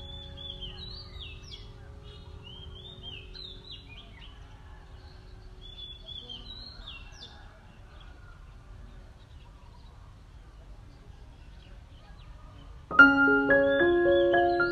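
Birds chirping in short repeated phrases over a low outdoor ambient rumble. Near the end, background music of short struck keyboard-like notes comes in suddenly and is the loudest sound.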